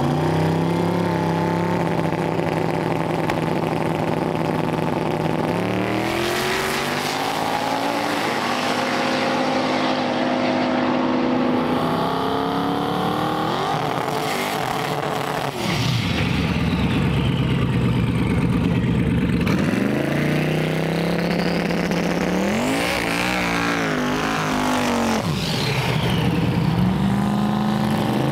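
Drag-race car engines revving hard at the starting line and launching, the pitch held steady at first and then climbing and dropping repeatedly as the cars pull through their gears down the strip.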